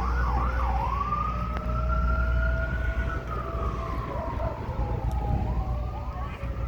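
Sirens sounding together: an emergency vehicle's siren goes from a fast warble into a slow rising and falling wail about a second in, over a Federal Signal STH-10 outdoor warning siren on its attack signal for a fire call. A steady low rumble lies underneath.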